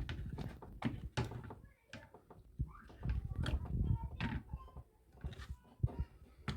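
Scattered clicks and light knocks of small objects being handled, with faint voices in the background.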